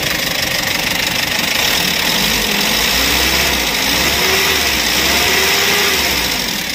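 Kia K2700's four-cylinder diesel engine idling steadily just after a start, running on reconditioned injector nozzles and new glow plugs fitted to cure its hard starting when cold.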